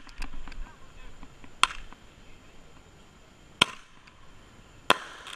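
Fireworks going off: three sharp bangs one to two seconds apart, with a few fainter pops in between.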